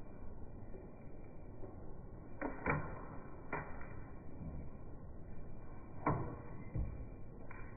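About five sharp clicks and knocks, spaced irregularly, from handling the Empire Sniper pump paintball marker.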